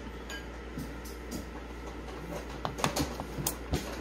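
Light clinks and knocks against a ceramic dish holding chestnuts in hot water, with several quick strikes clustered in the second half.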